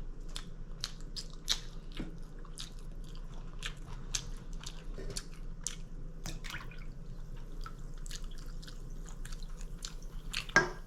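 Close-miked chewing of a crispy chicken club sandwich with bacon: an irregular run of mouth clicks and smacks.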